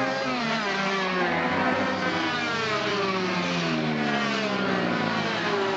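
Several small two-stroke minimoto engines racing close by, their overlapping high-pitched whines falling as the bikes slow into a corner, then rising again as they accelerate out near the end.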